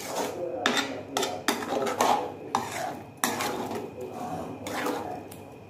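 Metal spatula scraping and stirring thick grated-carrot halwa around a metal kadai, repeated strokes a little over one a second, getting fainter near the end. The halwa is being dried off on the heat after the sugar has gone in.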